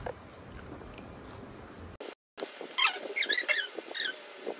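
Soft slurping and chewing of noodles, then after a short break to silence a run of loud, high-pitched squeaky cries that rise and fall in pitch for about a second and a half.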